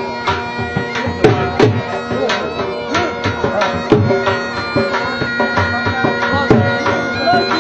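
Live folk dance music for a jhumar: a drum beating a quick rhythm under a droning wind instrument.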